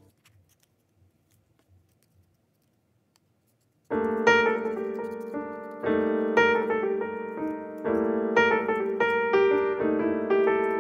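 Near silence for about four seconds, broken by a few faint snips of small scissors cutting paper, then solo piano music starts and plays on.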